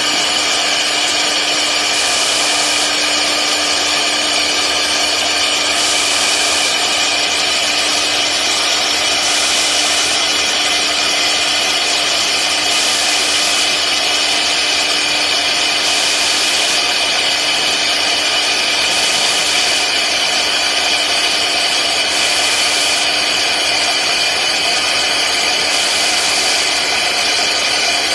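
CNC engraving router spindle running steadily while its end mill cuts through an acrylic sheet. A constant high whine sits under a cutting hiss that swells about every three and a half seconds.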